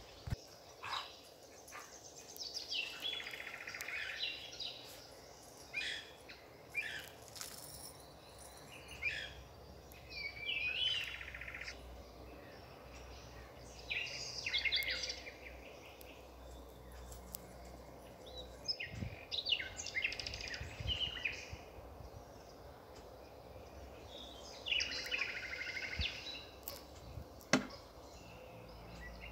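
Small songbirds singing, short phrases of high chirps coming every few seconds over a low steady background noise, with one sharp click near the end.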